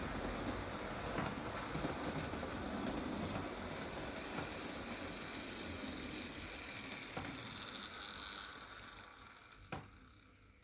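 Model railway locomotive running on the track: a steady mechanical whirr and rattle with occasional clicks. It dies away about nine seconds in and ends with a sharp click.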